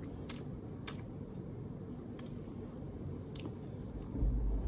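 A person chewing food close to the microphone, with a few sharp wet mouth clicks and a low bump near the end.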